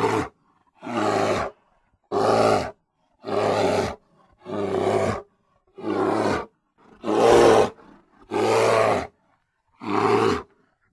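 A grizzly bear roaring over and over, about nine evenly spaced roars, each lasting under a second, with short silences between them.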